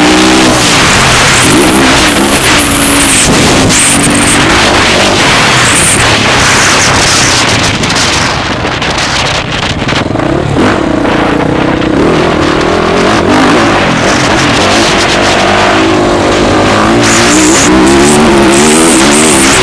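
Motocross bike engine revving hard, its pitch repeatedly climbing and falling as the throttle is worked. The revs drop back for a few seconds about eight seconds in, then climb again.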